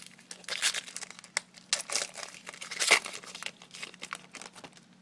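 Wrapper of a 2013 Bowman baseball card pack being torn open and crinkled by hand: a run of irregular crackles, loudest about three seconds in, thinning out near the end.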